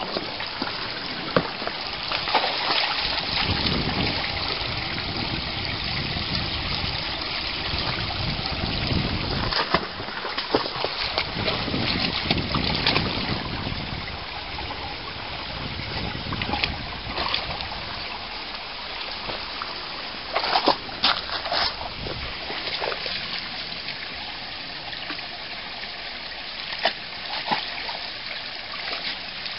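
Shallow stream trickling over rocks, with occasional splashes and sloshing as a dog wades and noses in the water.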